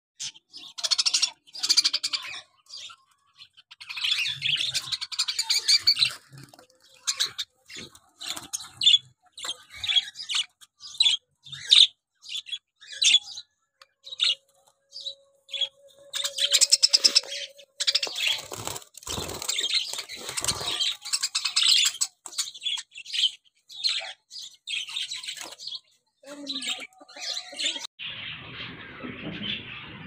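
A flock of caged budgerigars chirping and chattering: many short, high chirps with longer warbling runs.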